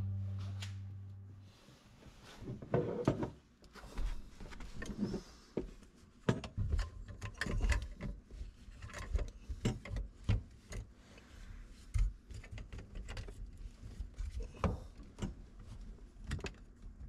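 Black plastic sink drain fittings being handled and pushed together under a sink: irregular knocks, clicks and scrapes of the trap and pipe pieces against each other and the cabinet, a few sharper knocks among them.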